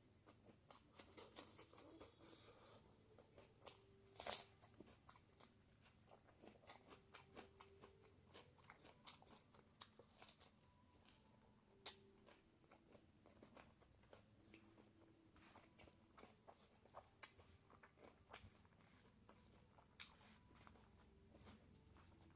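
A person chewing a mouthful of pork and bamboo shoot curry: a faint, steady run of short mouth clicks and smacks, with one louder click about four seconds in.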